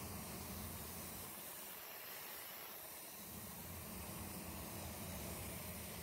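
Steady hiss of compressed air through a DeVilbiss Tekna ProLite spray gun as it lays down a coat of single-stage yellow paint, mixed with the paint booth's airflow.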